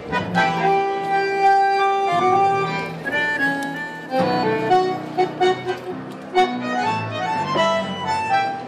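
Instrumental music led by a squeeze-box of the accordion family, playing held chords and short runs of notes.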